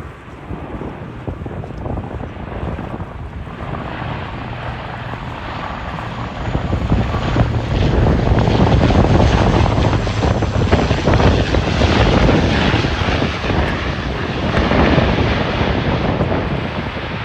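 An airliner's engines growing louder over the first six or seven seconds as it comes close, then running loud and steady.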